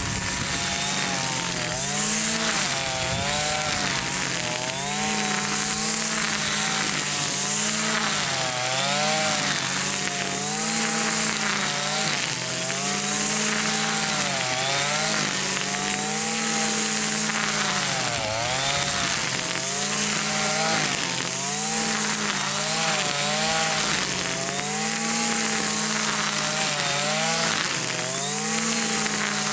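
Gas string trimmer running at high speed while cutting dry grass. The engine pitch dips and recovers every second or two as the line bites into the grass and is swung through it.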